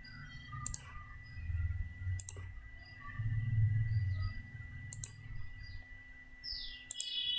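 Computer mouse clicks, a few sharp single clicks spaced a second or more apart, over a low on-and-off rumble. Short falling bird chirps come in near the end.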